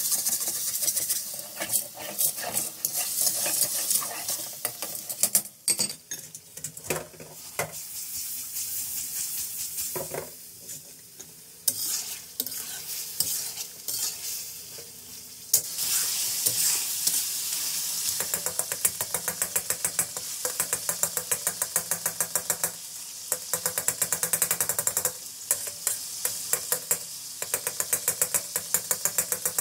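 Chicken pieces and tomatoes sizzling in hot oil in a metal karahi while a spatula stirs and scrapes the pan, frying the tomatoes down until they soften. In the second half the scraping strokes come quick and even.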